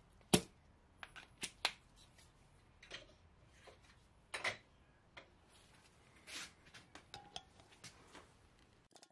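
Scattered light clicks and knocks from tools being handled on an aluminium cylinder head and set onto a valve guide driver, with one sharp knock just after the start as the loudest.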